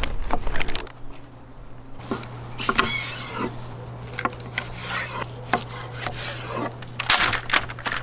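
Pink butcher paper crinkling loudly as it is peeled off smoked beef ribs, then a knife slicing through the ribs on a wooden cutting board, with scattered clicks and short scrapes. A steady low hum runs underneath, and a louder rustle of paper comes about seven seconds in.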